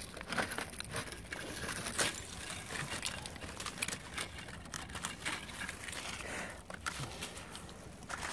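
Gloved hands digging and scraping through loose soil and dry leaves, with irregular rustling and many small clicks and knocks.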